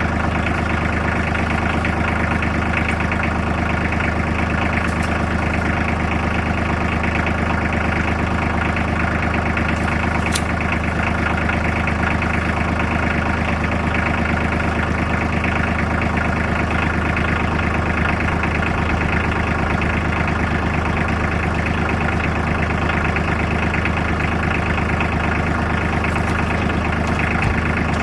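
An engine idling steadily at an even, unchanging pitch.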